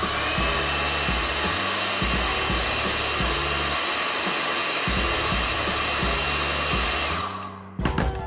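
Electric heat gun blowing hot air onto carbon-fibre vinyl wrap to soften it for stretching over a car badge: a steady fan rush with a faint whine, switched off about seven seconds in.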